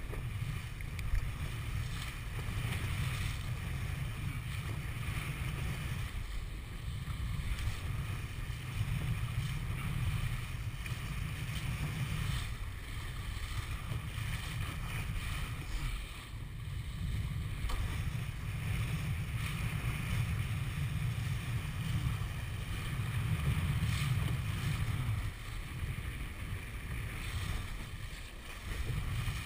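Wind buffeting the microphone on a 470 racing dinghy under sail, a low rumble that surges and eases every few seconds, over water rushing and splashing along the hull.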